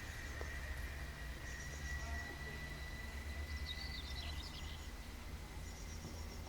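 Outdoor ambience: a steady low rumble under a faint thin steady tone, with small birds twittering in short bursts about every two seconds.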